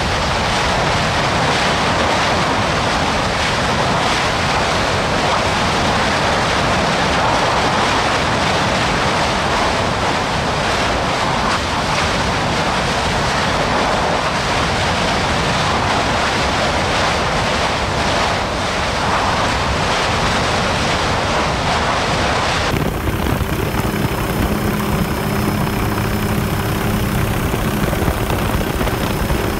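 A Kilauea fissure eruption: a lava fountain giving a steady, loud rushing noise. About 23 seconds in it cuts abruptly to the steady drone of an aircraft's engine with a thin high whine, heard from aboard the aircraft.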